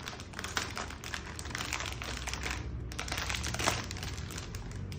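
Packaging rustling and crinkling, with irregular small clicks and knocks, as a mechanical keyboard is unwrapped and lifted out of its box.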